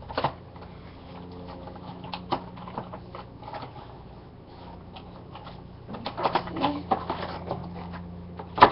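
Toy action-figure packaging being handled and opened: scattered crinkles and clicks of cardboard and plastic, a busier run about six seconds in, and a sharp click near the end.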